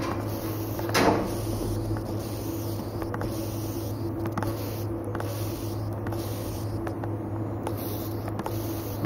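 A steady low electrical hum, with one sharp knock about a second in and a few faint clicks after it.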